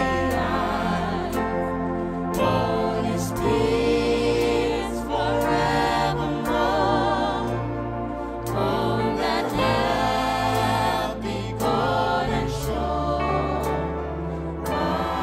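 Gospel music: voices singing with vibrato over a band with a steady bass line.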